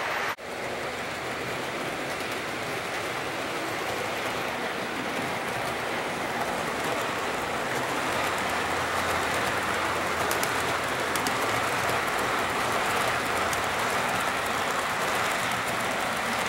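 HO-gauge model freight train of container wagons rolling along the track: a steady rushing hiss of metal wheels on the rails, with a few faint ticks. The sound cuts out briefly about half a second in.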